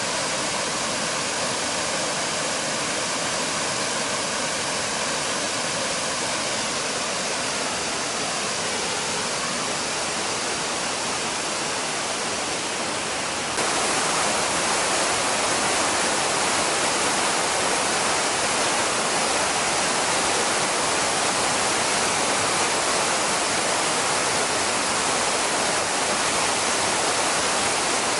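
Waterfall pouring: a steady, dense rush of falling water. Faint steady tones sit under it for the first third and bend down and fade, and about halfway through the rush jumps suddenly louder and brighter.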